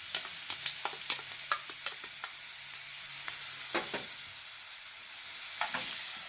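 Shrimp, garlic and onion frying in hot oil in a nonstick skillet with cream just added: a steady sizzle with many scattered pops and crackles.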